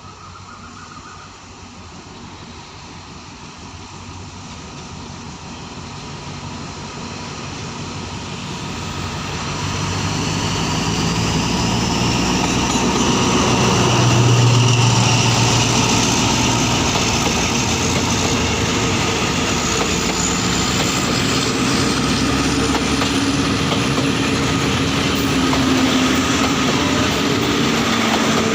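Alsthom diesel-electric locomotive pulling a passenger train out of a station. The engine works up and grows louder over the first half, then runs on loud and steady with a high whine rising slowly in pitch as the train gathers speed.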